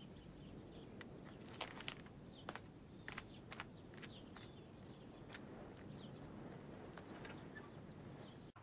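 Faint outdoor ambience: a low steady hiss with scattered short bird chirps and a few soft clicks.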